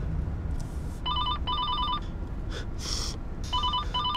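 Incoming-call ringtone playing through a car's hands-free system: pairs of fast trilling beeps, about a second in and again about three and a half seconds in. A low steady cabin rumble runs underneath, and a short hiss comes about three seconds in.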